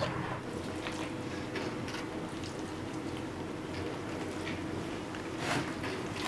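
Hands handling wet napa cabbage, with faint soft squishes and rustles at irregular moments over a steady low hum.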